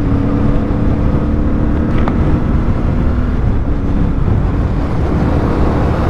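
CFMOTO 450MT's parallel-twin engine running steadily at cruising speed, with tyre and road rumble from the gravel surface. A brief tick about two seconds in.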